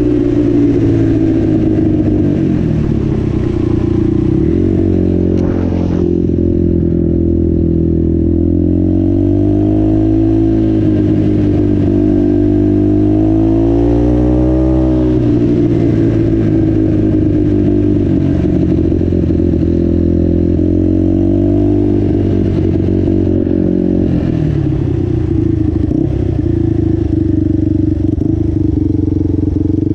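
Yamaha Warrior 350 quad's single-cylinder four-stroke engine running under way. Its pitch rises and falls with the throttle, with the biggest swings in the middle.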